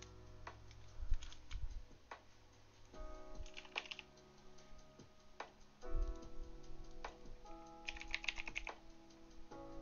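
Computer keyboard typing in two short bursts, about four seconds in and again near eight seconds, with a few soft thumps, over background music with sustained chords.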